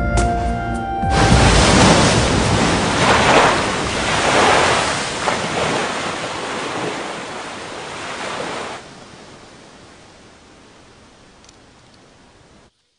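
Music ends about a second in, giving way to a loud rushing noise that swells several times. The noise drops to a quieter hiss about nine seconds in, fades, and cuts off just before the end.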